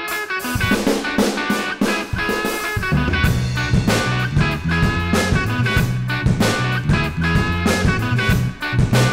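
Background band music with guitar and a steady drum beat. A heavier bass part comes in about three seconds in.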